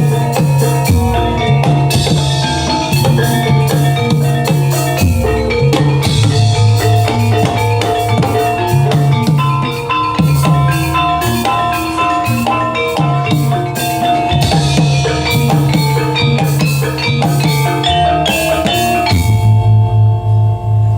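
Reog gamelan ensemble playing live: drums beating a busy pattern over ringing struck metal percussion and low gong tones. Shortly before the end the drums and higher instruments drop out, leaving the low tones sounding.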